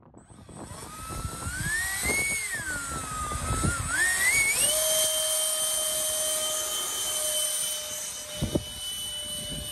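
A 70 mm electric ducted fan on a radio-controlled Saab 37 Viggen model jet whines as it is throttled up and down. About five seconds in it climbs to a steady high-pitched whine at full power. There is a brief low thump near the end.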